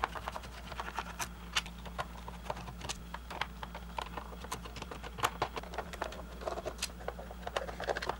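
Small irregular clicks and taps of a screwdriver backing out the small screws on the plastic back of a gauge cluster, and of the loose screws being handled.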